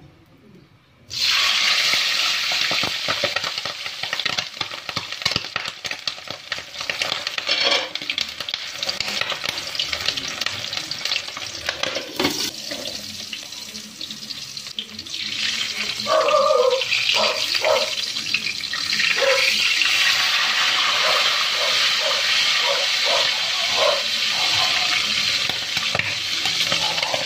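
Pork belly frying in hot oil in a wok: a loud sizzle starts suddenly about a second in as the meat goes into the oil. It dies down for a couple of seconds midway, then picks up again.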